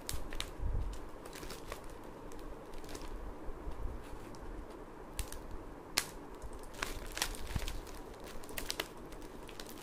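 Crinkling of a stapled courier parcel packet being handled while its staples are pried out with a small metal tool, with scattered sharp clicks and snaps, the loudest about six seconds in.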